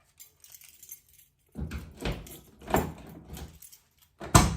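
A key jangling and scraping as it is worked in a sticking manual door lock on a 1995 Nissan D21 pickup, freshly lubricated. There is a run of rough strokes about half a second apart, then a sharp click near the end.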